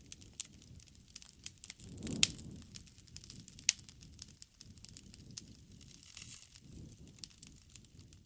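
Wood fire crackling, with many sharp pops over a low rumble of burning; the loudest pop comes about two seconds in.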